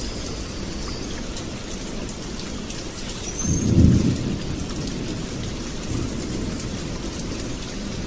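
Steady rain, with a low rumble of thunder swelling about three and a half seconds in and a fainter one near the end.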